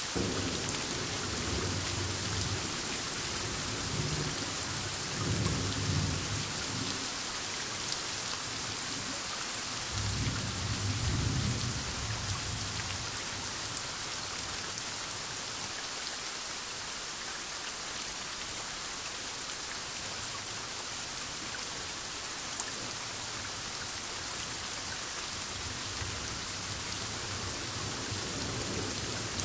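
Heavy rain falling steadily through a thunderstorm, with low rolling thunder rumbling in the first seven seconds and again about ten seconds in, then fading, and a faint rumble returning near the end.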